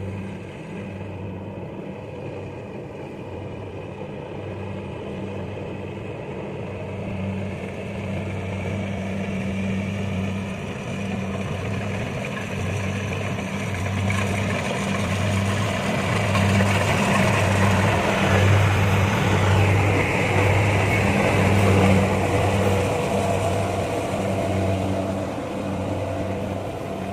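Kubota rice combine harvester running as it works, a steady engine hum under a rushing mechanical noise. It grows louder through the middle and eases off near the end.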